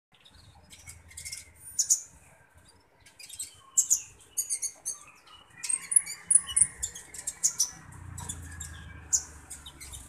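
Green-plumaged kolibri ninja (a sunbird) giving many short, sharp, very high-pitched chirps, singly and in quick stuttering runs. A low rumble sits under the last couple of seconds.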